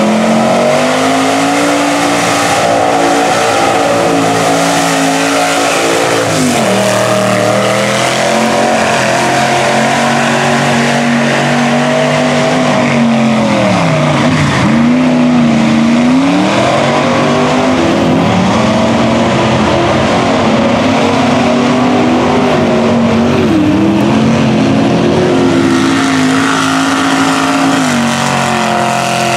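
Lifted mud truck's engine held at high revs as the truck churns through a mud pit, with spinning tyres throwing a steady spray of mud. The engine pitch drops briefly where the throttle eases, about six seconds in and again around fourteen to sixteen seconds, then climbs back.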